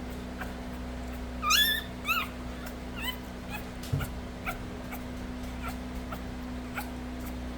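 A 4-day-old Nova Scotia Duck Tolling Retriever puppy squealing: two high, wavering cries about a second and a half and two seconds in, then a few fainter squeaks. Light clicks and a steady low hum run underneath.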